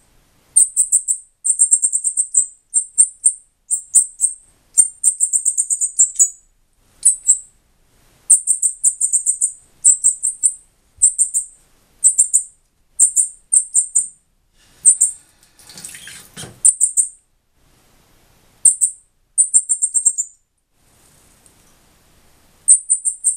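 Young northern cardinal giving high, rapid begging chirps in bursts while being hand-fed, with a short rustling noise about two-thirds of the way through.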